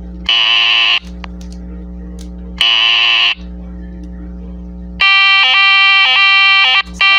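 Emergency Alert System header tones: two short, harsh, buzzy data bursts about two seconds apart. They are followed, about five seconds in, by the loud, steady two-tone EAS attention signal, which breaks briefly near the end. A steady low hum runs underneath.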